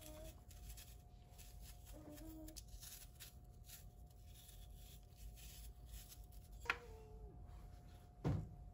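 Small knife peeling and cutting an apple over a wooden cutting board: faint scraping and light taps, with a louder knock near the end.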